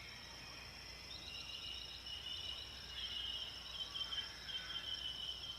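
Insect chorus in the background ambience: a steady high-pitched trill with other chirping trills coming and going beneath it, a little louder from about three seconds in.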